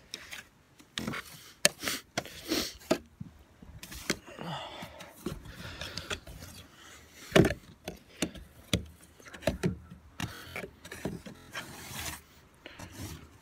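Snow brush sweeping wet snow off a pickup truck's side panels: irregular swishing strokes, the loudest about halfway through.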